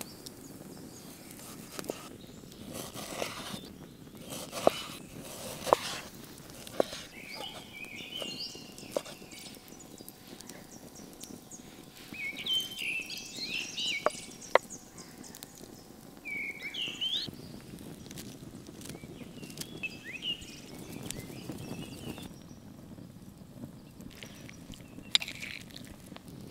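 A knife chopping raw beef on a wooden cutting board, heard as sharp scattered knocks, with hands working chopped meat in a bowl. Birds chirp in short bursts through the middle, over a steady low outdoor background.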